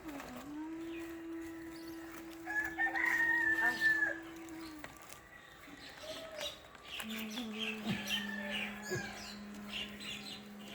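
A rooster crowing once, about two and a half seconds in, over scattered bird chirps and a steady low hum.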